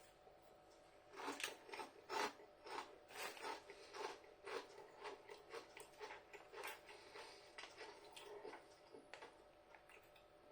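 Crinkle-cut potato crisps being chewed: faint, irregular crunches about two or three a second, starting about a second in and tailing off near the end.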